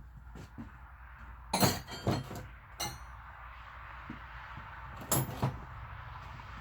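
Sharp metallic clinks of steel tools against steel, several close together in the first half and a couple more near the end, each with a short ring, over a steady hiss.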